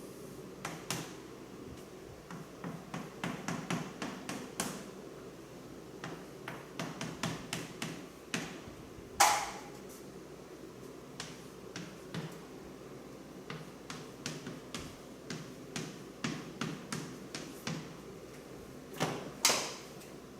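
A pen tapping and scratching on a writing surface in clusters of short clicks as a diagram is drawn, with two louder sharp knocks, one about nine seconds in and one near the end.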